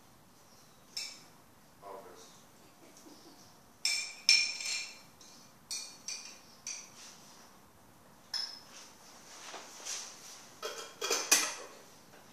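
Scattered sharp metallic clinks and jingles, each with a short high ring, coming singly about a second in and in small clusters around four to seven seconds in and again near the end.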